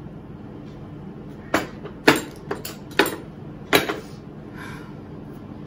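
A metal spoon knocking against a glass bowl about five times, sharp separate clinks over two seconds or so, while cold, clumped instant noodles are worked loose from the bowl.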